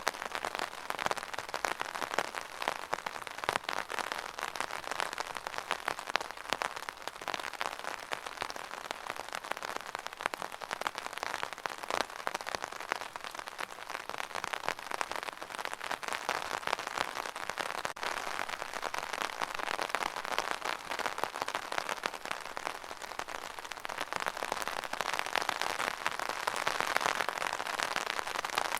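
Steady rain falling on a surface, a dense patter of countless small drops, swelling slightly near the end.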